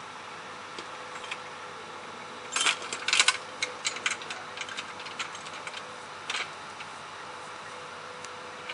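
A quick cluster of sharp metallic clinks and rattles about two and a half to four seconds in, then a few scattered clanks, from track workers handling metal equipment at the rails. Under it, a steady machine hum.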